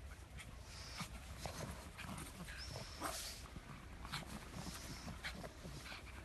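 Pugs making short, irregular dog sounds while running through snow, a few of them brief high squeaks, over a steady low hum.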